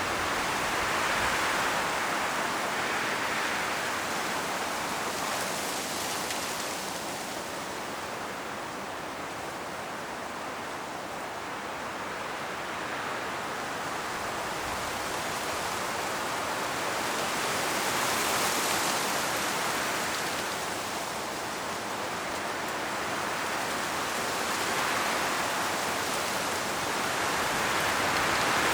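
Strong wind gusting through forest trees, rustling the leaves. The rushing swells and eases in slow gusts and builds again near the end.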